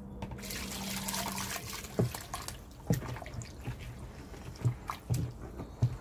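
Water poured into a plastic bucket of mashed eel bones for about a second and a half. Then a wooden pestle pounds the wet bones in a series of dull thuds, about six strikes.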